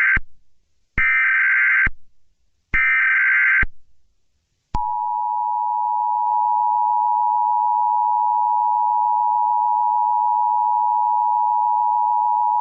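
Emergency Alert System tones. The tail of one SAME header data burst is followed by two more identical buzzing data bursts about a second apart. Then the steady two-tone EAS attention signal starts just under five seconds in and holds without a break.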